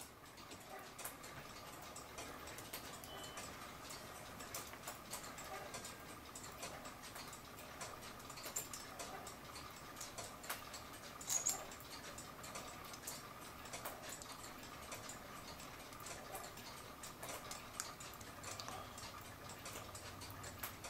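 Faint, irregular small metallic clicks and taps: levers and their retaining clips being fitted onto a cuckoo clock movement's brass plate, with one louder click about eleven seconds in.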